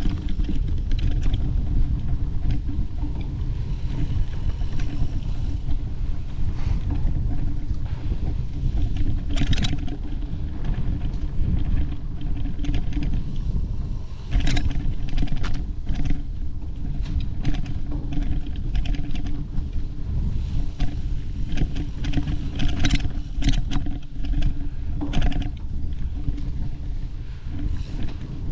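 Bicycle being ridden along dirt singletrack: a steady low rumble of wind and trail noise on the microphone, broken by scattered sharp clicks and rattles as the bike goes over bumps.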